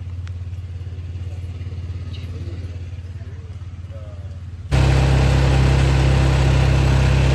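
An engine running steadily at a low drone. About five seconds in it cuts abruptly to a louder, fuller running engine.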